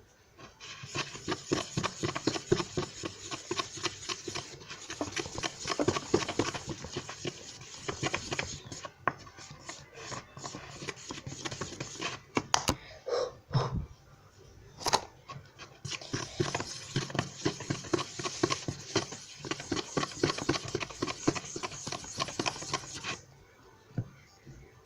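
Sticky homemade dough of flour and paste being squished and mixed by hand in a bowl, a run of rapid irregular wet clicks and squelches that pauses briefly in the middle and stops near the end.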